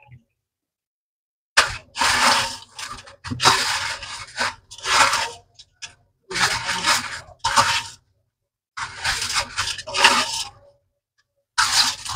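A hand pressing and turning a marinated chicken piece in a stainless steel bowl of panko bread crumbs, the crumbs rustling and scraping against the bowl in about seven short bursts.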